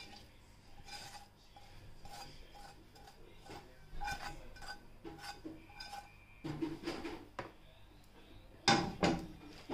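Spatula scraping and knocking against a cast iron skillet as sautéed onions are pushed out of it, with short clinks throughout and louder knocks about four seconds in and near the end.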